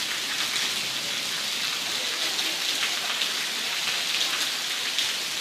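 Steady rain falling on wet brick paving, an even hiss with scattered drop ticks.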